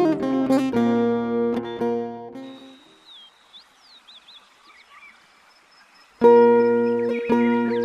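Background music of a plucked string instrument, like an acoustic guitar, playing steady picked notes. It fades out about two and a half seconds in, leaving a quiet stretch with a few faint high chirps, then cuts back in abruptly about six seconds in.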